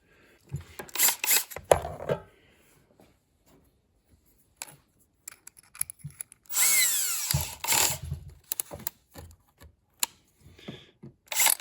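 Power drill with a 1/4-inch bit run in one burst of about a second and a half, its motor pitch gliding down as it stops. Short knocks and handling clatter of tools come before and after.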